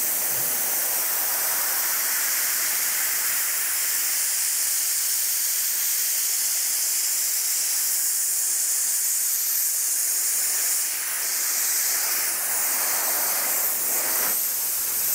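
Dry ice blasting gun with a wide flat nozzle blasting the sidewall of a tire: a loud, steady hiss of compressed air and dry ice pellets. It dips briefly about eleven seconds in and stops right at the end.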